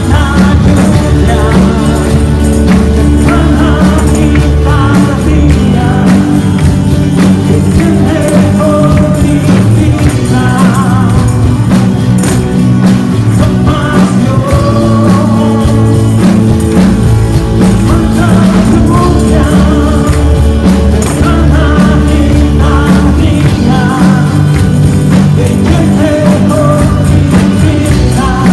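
Live gospel worship music: a singer over a band with keyboard and drums, and tambourines jingling along in time.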